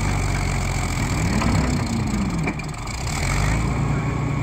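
Caterpillar crawler tractor engine running under load as it moves a heavy harvester onto a trailer, its pitch rising and falling once about a second in, with a few knocks.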